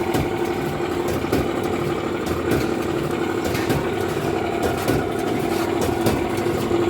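Speed Queen commercial clothes dryer running with a very bad "crusher noise": a steady hum with irregular knocking and rattling clicks over it. The noise comes from a damaged drum idler pulley.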